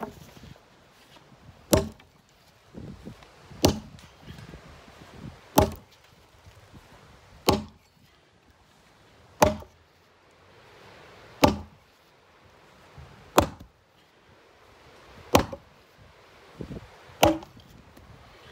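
Axe chopping into an old, weathered wooden beam lying on the ground: nine sharp strikes, about one every two seconds, with soft scuffing between them.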